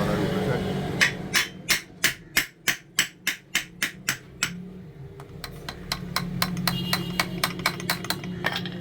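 Hammer tapping on a washing machine motor during reassembly after new bearings were fitted: a run of sharp, evenly spaced knocks, about three a second, that fade, then lighter, quicker clicks near the end.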